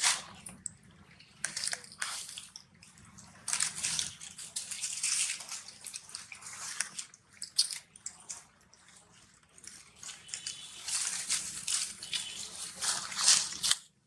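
Irregular crunching and rustling as a long-tailed macaque bites and handles a piece of fresh coconut on dry leaf litter, coming in spells of a second or two with short lulls between.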